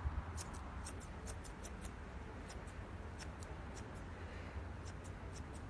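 Dog-grooming chunker shears snipping repeatedly through a Newfoundland's coat: a run of light, irregular clicks, about three a second, with a short pause past the middle.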